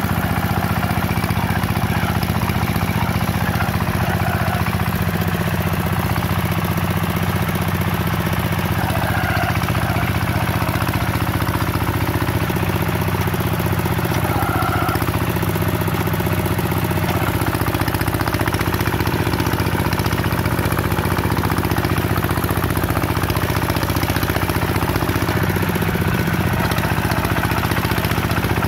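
Single-cylinder horizontal diesel engine of a two-wheel hand tractor running steadily under load, pulling the tractor's cage wheels and levelling board through a flooded rice paddy.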